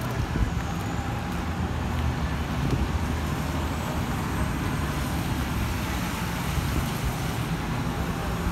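Steady street noise in the rain: a fluttering rumble of wind on the phone's microphone over an even hiss of traffic on wet roads.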